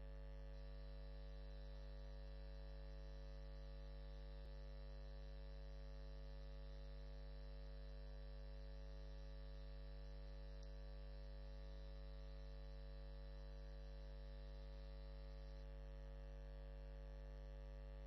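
Steady low electrical mains hum, a buzz with many even overtones, on the soundtrack. A faint high whine under it stops near the end.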